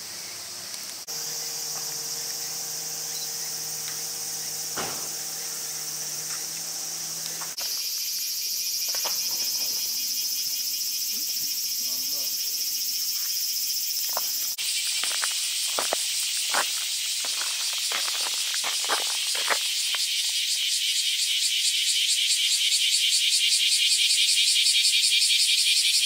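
Steady high-pitched insect chorus in summer greenery. The sound changes abruptly three times where the recording cuts between shots, and in the second half it has a fast, even pulsing. A few short ticks sound through it.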